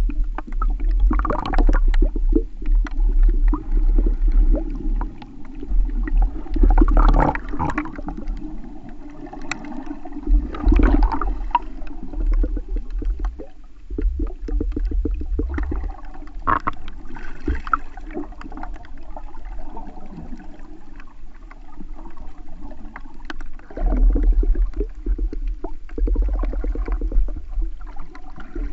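Underwater sound heard through a GoPro's waterproof housing: water sloshing and gurgling over a low, uneven rumble, with fine ticking and louder rushing surges every few seconds.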